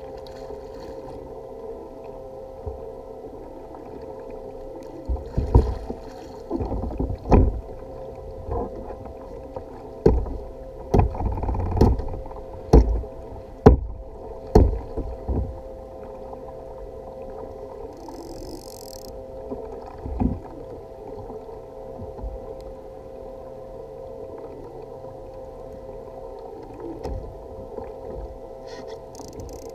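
Irregular knocks and thumps on a fishing kayak, several in quick succession over about ten seconds and one more later, as the angler in it works a fish on a bent rod. Under them is a steady low, muffled rumble, and there is a brief high hiss partway through.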